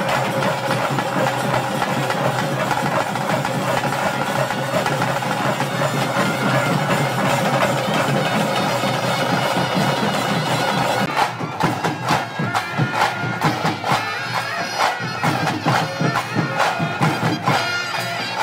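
Traditional ritual music: a loud double-reed pipe playing over a steady drone. About eleven seconds in, rapid drumming joins it.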